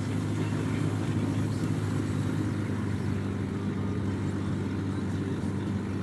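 Car running, heard from inside the cabin: a steady low hum with an even hiss over it.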